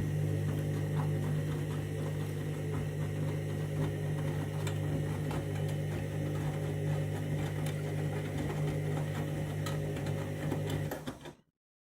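Candy washing machine running its main wash: a steady motor hum from the turning drum with scattered light clicks and knocks. It cuts off suddenly near the end.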